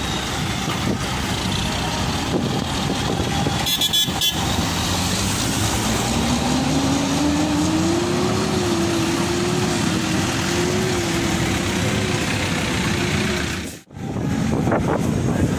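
Loaded diesel dump truck's engine running as it pulls away, with a second engine tone rising in pitch about six seconds in and then holding steady. The sound drops out briefly near the end.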